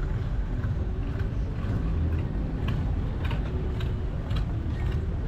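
Steady low rumble of a boat engine running, with scattered light clicks and taps over it.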